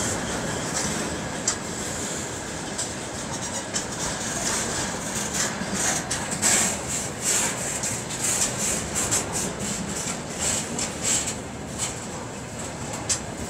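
Freight train of railway tank cars rolling past: a steady rumble of steel wheels on the rails, with irregular clicks and clanks throughout.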